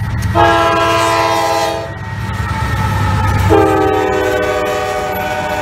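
CSX freight diesel locomotive passing close with a double-stack container train, its air horn sounding two long blasts with a short break between them. The second blast sags slightly in pitch as the locomotive goes by. The low rumble of the engines and the rolling train runs underneath.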